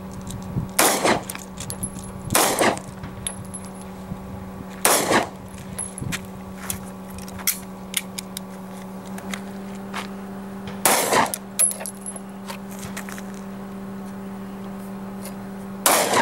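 Semi-automatic pistol fired five times at irregular intervals: two shots about a second and a half apart near the start, one about five seconds in, one about eleven seconds in and one at the very end. Each sharp shot has a short echo.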